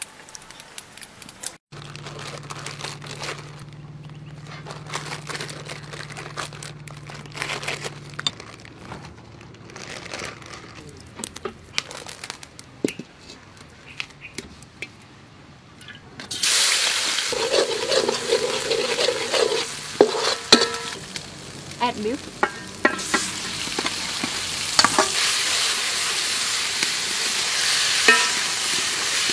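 Beef frying in a hot metal wok: loud sizzling sets in about halfway through, with a spatula clicking and scraping against the pan as the meat is stirred. Before that there are only quieter scattered clicks and knocks.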